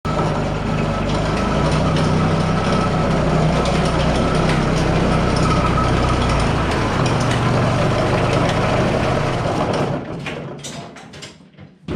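New Holland TC35 compact tractor's diesel engine idling steadily, then dying away about ten seconds in, leaving a few light clicks and knocks.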